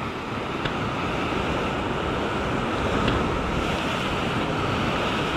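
Sea surf washing and breaking against shore rocks in a steady rush, with wind on the microphone.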